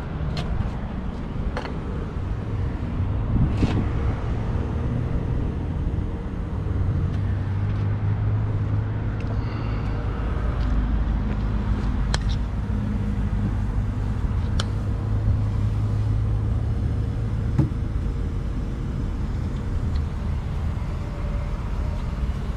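Heavy truck's diesel engine idling with a steady low rumble and a faint steady tone, with a few light clicks and knocks over it. The driver cannot place one sound from the truck.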